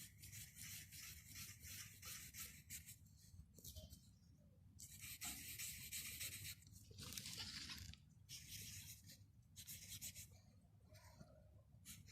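Faint rasping and scratching from a metal scouring sponge rubbed in repeated strokes, coming in bursts of about a second or more with short pauses between.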